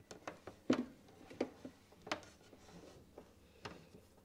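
Irregular light knocks and clicks, about half a dozen, the loudest about a second in, as a black electrical cable is fed by hand down behind a mounted solar charger unit and knocks against the surrounding fittings.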